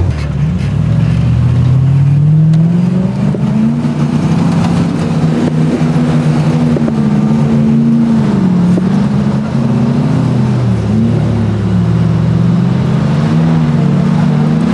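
Off-road 4x4 engine revving hard under load as it drives at a sand dune from a run-up. The revs climb over the first few seconds, then rise and fall repeatedly while the wheels work through the soft sand.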